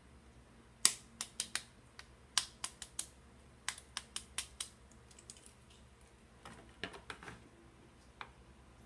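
Sharp clicks and taps from hands working in a clear plastic tub, about twenty in quick, irregular runs. The loudest comes about a second in, and a second, smaller cluster follows after a pause near the middle.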